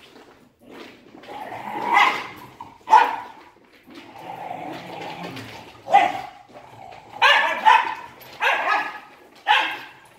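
Wire fox terriers barking during rough play, in short irregular bursts that come more often in the last few seconds.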